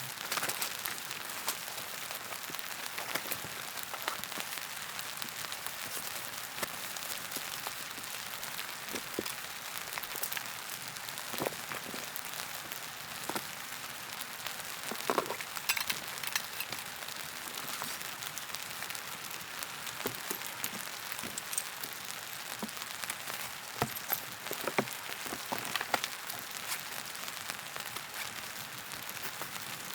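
Steady rain falling, an even hiss with many sharp single drop hits scattered through it.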